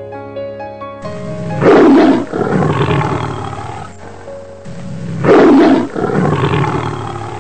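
A tiger roaring twice, each roar lasting about three seconds and loudest just after it begins, over background music.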